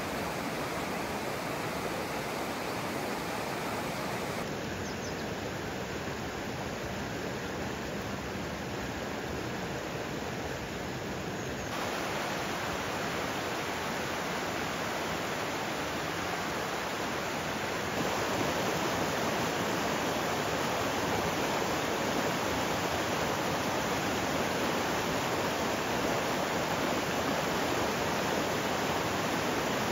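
Rushing water of a rocky mountain stream running over boulders and riffles, a steady even rush. It grows louder about twelve seconds in and again about eighteen seconds in.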